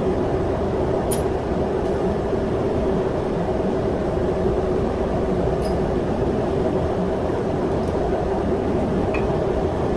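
Steady drone of ship's engine-room machinery, with a few faint light clicks from a fuel injector being dismantled by hand.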